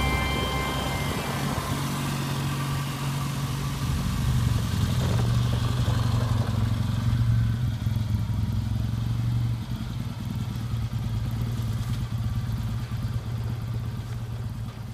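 BSA motorcycle engine running steadily at low revs, a low even throb that fades away near the end.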